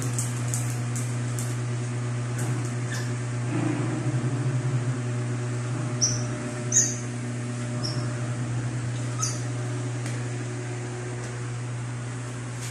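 A steady low electrical hum under puppies playing on a hard floor: faint clicks and scuffling early on, then four short high squeaks in the middle.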